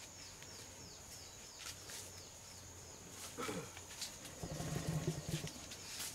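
Young Asian elephant calf giving a low, rough rumble for about a second, just past the middle, after a shorter falling sound. A steady high buzz with short falling chirps runs behind it.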